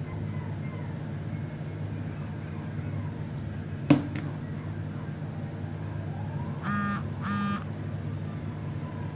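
A steady low hum throughout, with one sharp click about four seconds in and two short buzzy beeps in quick succession near the end.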